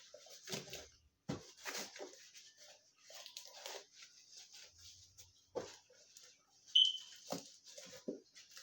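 Rustling, rubbing and light knocks from handling and wiping a cardboard-and-plastic toy box, with a brief high squeak about two-thirds of the way through.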